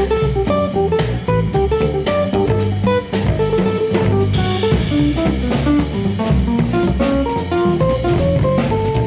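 Background music: an instrumental jazz-style tune with plucked guitar and a drum kit keeping a steady beat.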